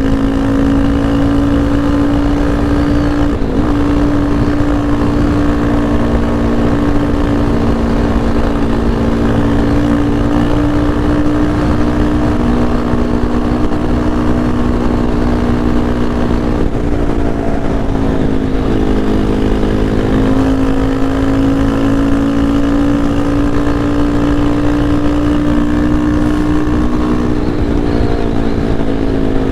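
Yamaha Lander 250's single-cylinder four-stroke engine running under way at fairly steady revs, its pitch dipping briefly a few times as the throttle is eased or a gear is changed, over a low rush of road and wind noise.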